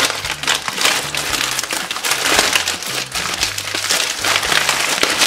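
Thick plastic of an MRE outer bag crinkling and rustling as the cardboard inner box is worked out of it, with quiet background music underneath.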